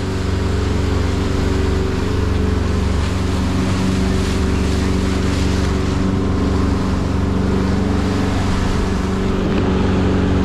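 A boat's engine running steadily while trolling at speed, with a constant rush of wind and water.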